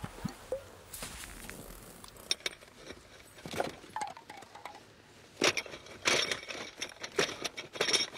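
Film sound effects: light clinks of a small glass bottle and rustling of cloth, then from about halfway a scuffle in a car, many quick rustles and knocks as a handkerchief is pressed over a woman's face while she struggles.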